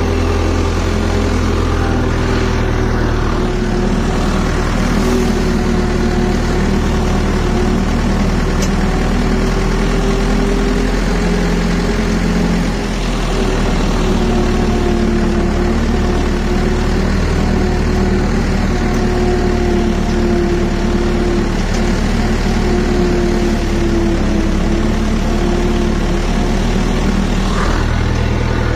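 Hindustan 80 tractor's diesel engine running steadily while driving and pulling a trailer.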